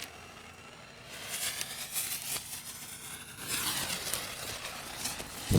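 Lit fireworks fuses hissing and crackling, then a loud thump near the end as a mortar shell launches.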